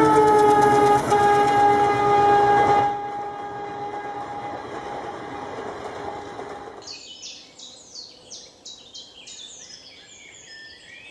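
Diesel locomotive's multi-tone air horn blowing long over the rumble of the passing train, its pitch sliding slightly down at first; it drops back about three seconds in and fades out about seven seconds in. Birds then chirp over a quiet background.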